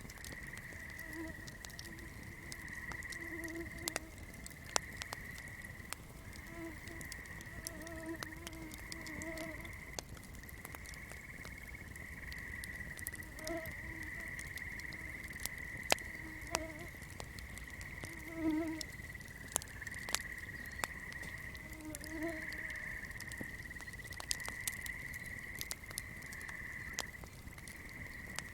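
Swamp chorus: a steady high-pitched insect or frog trill, with short low frog croaks coming in clusters every few seconds. Frequent sharp crackling clicks from a burning candle run over it.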